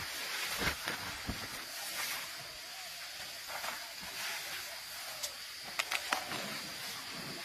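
Leaves rustling and twigs snapping as an Asian elephant pushes through dense jungle undergrowth, with a few sharp cracks, the clearest about a second in and again near the end, over a steady high hiss.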